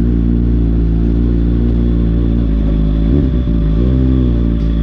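Motorcycle engine running steadily at low revs, with a brief wobble and change in pitch a little over three seconds in.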